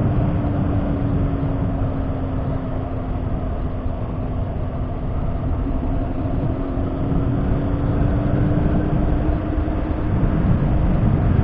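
Motorcycle engine running steadily in gear on a downhill stretch, engine braking: a steady drone whose pitch sags slightly and then climbs back. Heavy wind rumble on the microphone runs under it.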